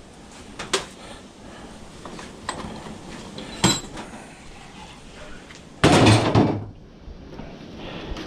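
Scrap car radiator parts being handled: a few sharp knocks and a clink as the black plastic end tank is moved about, then a loud clatter lasting under a second about six seconds in.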